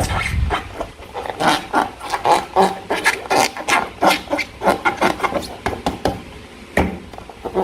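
Slime being squeezed and worked by hand: a quick, irregular run of sticky clicks and squelches, several a second.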